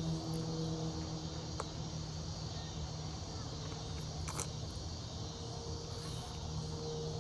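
Steady chirring of insects, with a low steady hum underneath and a couple of faint clicks.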